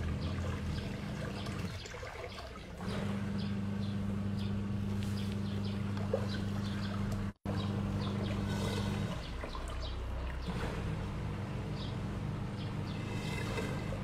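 Water churning and bubbling in the clear cylinder of a homemade hair-washing machine, over the steady hum of its motor. The hum cuts out briefly about two seconds in and again around nine seconds in, and everything drops out for an instant a little past seven seconds.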